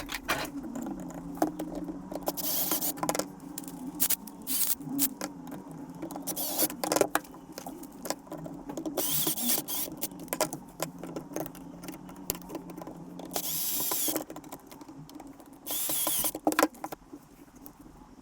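Hands-on work with tools and materials: irregular clicks and knocks with several short scraping or rustling bursts, over a faint steady hum.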